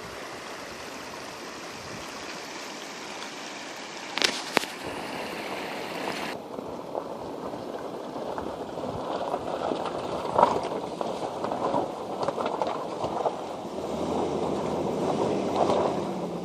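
Fast-flowing flood-swollen river water rushing and gurgling, choppier and splashier in the second half, with two sharp knocks about four seconds in.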